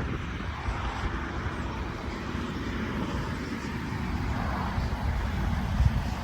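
Wind buffeting the microphone as a low, uneven rumble, with a faint steady background hiss.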